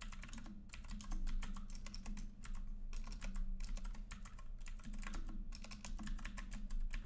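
Typing on a computer keyboard: quick runs of key clicks broken by short pauses, over a low steady hum.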